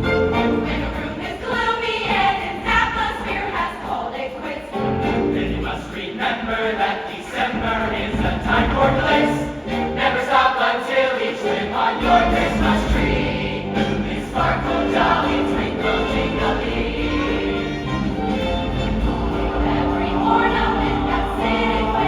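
Choir singing with a backing accompaniment. The bass of the accompaniment drops out for several seconds near the middle, then returns.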